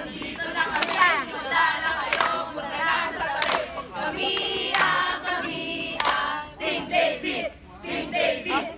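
A group of young people singing together, with sharp hand claps about every second and a quarter.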